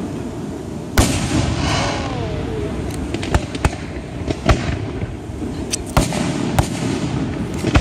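Fireworks display: about seven sharp bangs at irregular intervals, the loudest about a second in, over a steady background rumble.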